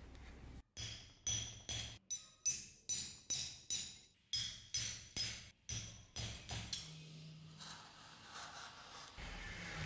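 Hammer blows on a metal leather punch held upright on leather over a hard block, about three ringing strikes a second, stopping about two-thirds of the way through.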